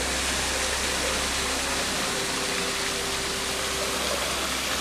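Steady rushing of water pouring into a swimming pool from a pool waterfall. A faint steady hum runs underneath and stops about four seconds in.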